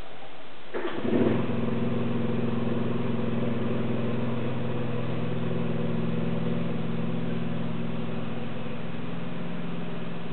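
An engine starting about a second in, then running steadily at an even speed.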